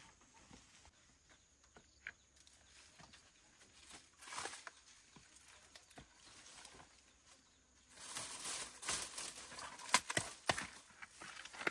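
Dry gourd vines and dried gourds rustling and crackling as they are pulled and handled on a trellis. There are a few faint ticks at first, then a louder run of rustling from about two-thirds of the way in, with sharp snapping clicks.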